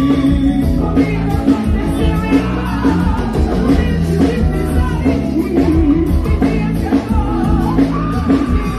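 Live forró band music with singing: a male singer's voice over drums and bass, continuous and loud.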